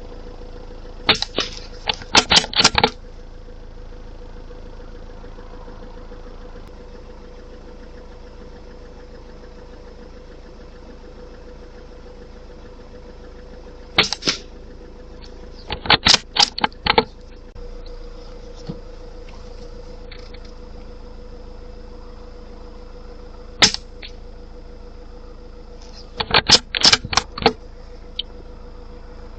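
A suppressed .22LR rifle fired three times, each shot a single sharp crack followed a couple of seconds later by a quick run of clicks as the bolt is worked, over a steady low hum.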